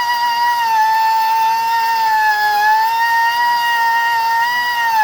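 Air-powered rotary grinding tool running at full speed against a stone, a steady high whine whose pitch sags and recovers slightly as the bit is pressed into the rock.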